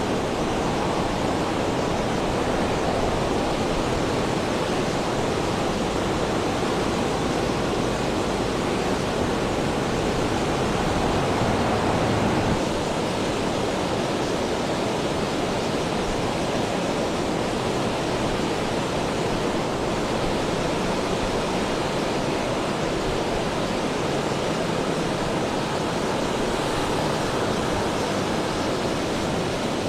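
Heavy rain falling steadily, a dense even hiss of drops, easing slightly about twelve seconds in.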